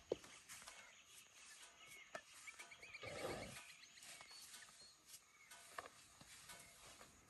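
Faint sounds of elephants feeding in grass: scattered crisp snaps and rustles of grass being pulled and chewed, with a brief low whoosh about three seconds in. A short run of high chirps comes just before the whoosh.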